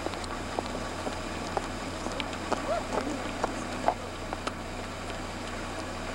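Steady low hum and hiss with scattered light clicks and knocks, and brief snatches of faint voices.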